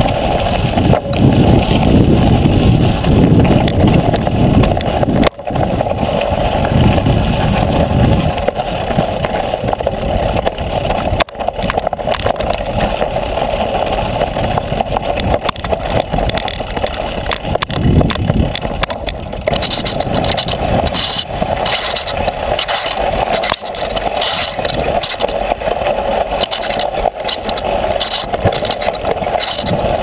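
Bicycle rolling over a rough dirt and gravel track, tyres rumbling and the bike rattling, with wind buffeting the microphone; the low rumble eases after about eight seconds, and a fast rattling patter comes in about two-thirds of the way through.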